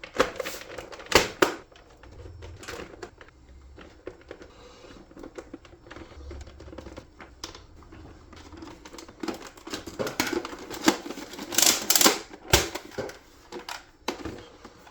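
Irregular clicks, taps and knocks of hard plastic parts being handled, with a few louder knocks about a second in and again near 12 seconds.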